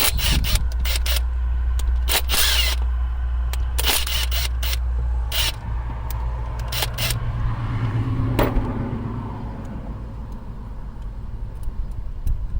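Irregular metallic clicks and clinks of hand tools on a brake line flare tool as its three clamp bolts are loosened, over a steady low hum.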